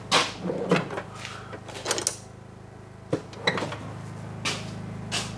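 A string of sharp knocks and clatters of objects being handled and set down, the loudest in the first second, over a steady low hum.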